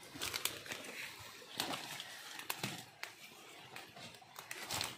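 Rustling and irregular crackling of dry leaf litter, twigs and leafy plants as someone moves through forest undergrowth, with a sharper click near the end.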